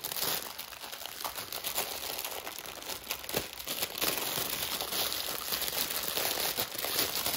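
Small plastic bags of diamond-painting drills crinkling and rustling steadily as they are handled and sorted.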